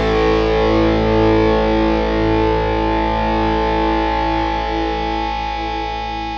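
Distorted electric guitar chord left ringing out as the song's final chord, held steady and slowly fading.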